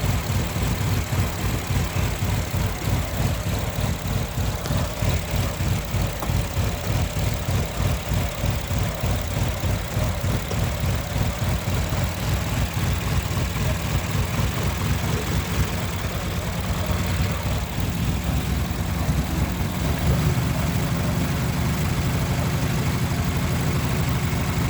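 2015 Infiniti QX60's V6 idling roughly with an uneven, lumpy pulse, its cylinder 6 ignition coil unplugged in a coil-pull test for a rough idle. About 18 to 20 seconds in, the running turns steadier and slightly louder.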